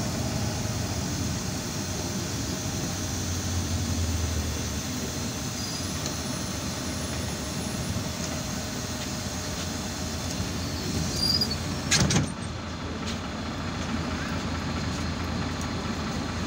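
Irisbus Citelis 12 m city bus heard from inside the cabin: the engine running with a steady low hum and rumble, and a short, sharp noise about twelve seconds in.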